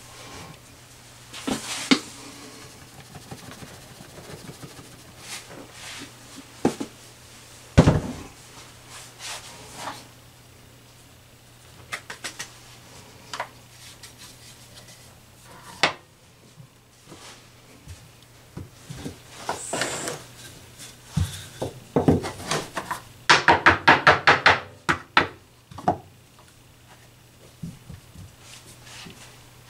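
Kitchen handling sounds of pies being made on a floured countertop: scattered knocks and taps of a plastic pie press and rolling pin against the counter, with rustling between them. About three-quarters of the way through comes a quick run of rapid taps lasting about two seconds.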